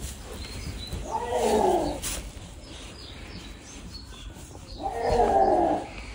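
An animal calling twice, a few seconds apart: each call is drawn out for about a second and falls in pitch.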